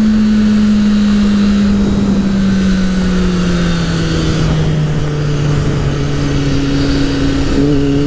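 Kawasaki Ninja ZX-6R inline-four engine running at steady part throttle under way, its note slowly falling in pitch as the bike eases off, with a small rise near the end. Wind rush over the microphone runs underneath.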